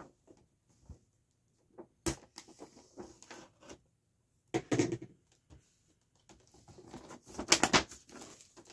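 Handling noise from unwrapping a boxed set: scattered taps and short rustles of cardboard and plastic packaging. There is a sharp tap about two seconds in, a rustle about halfway, and the loudest rustling near the end.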